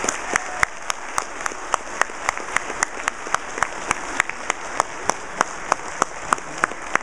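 Audience applauding, with one pair of hands clapping close by at a steady three to four claps a second, louder than the rest of the crowd.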